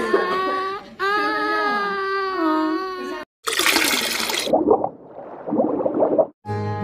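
A high, wavering crying voice for about three seconds, then it cuts off. A rushing splash and gurgling, sloshing liquid sound effect follows.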